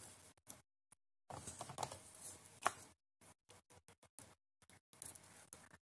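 Close handling sounds of synthetic hair being gathered and a metal automatic hair clip being handled: soft rustling in short patches with small clicks and taps, the sharpest click about halfway through.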